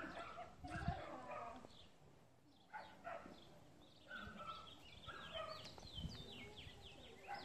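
Faint dog barking and yelping in the background. Near the end comes a quick run of short, high calls that each fall in pitch.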